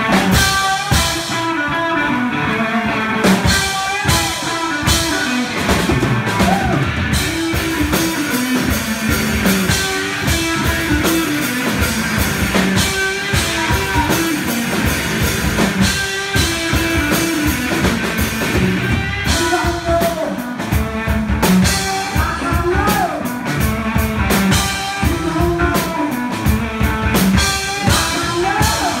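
Live rock duo playing: an electric guitar over a drum kit, loud and continuous.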